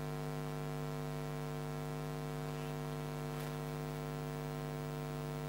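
Steady electrical mains hum in the recording, a low buzz with a row of even overtones and nothing else over it.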